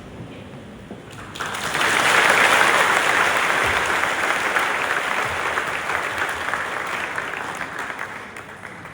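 Audience of students clapping: the applause swells about a second and a half in and dies away near the end.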